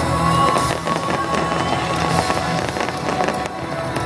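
Fireworks crackling and popping, with many sharp cracks, over music with long held notes.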